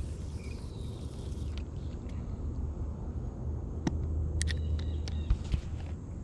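A steady low rumble, with a few sharp clicks about four and five seconds in and a brief high-pitched sound between them.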